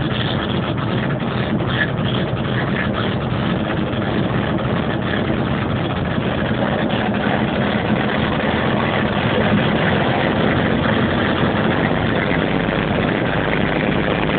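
Caterpillar landfill compactor's diesel engine running steadily just after a cold start, fired on glow-plug preheat alone without starting fluid.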